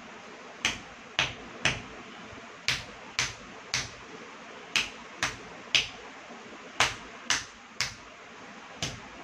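Bare feet stamping on a tiled floor in a classical Indian dance footwork exercise: sharp slaps in groups of three, about half a second apart, with each group starting about two seconds after the last.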